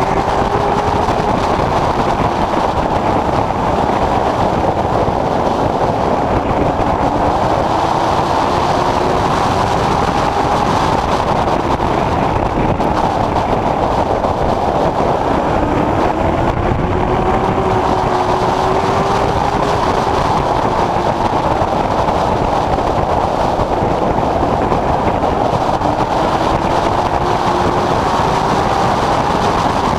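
Late Model Stock race car's V8 engine running hard at racing speed, heard from inside the car. Its pitch climbs and drops every several seconds as the car accelerates and lifts around the oval.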